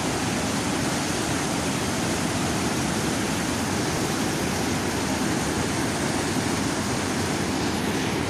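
Floodwater rushing steadily over the spillway of an overflowing lake, a loud, continuous wash of cascading whitewater.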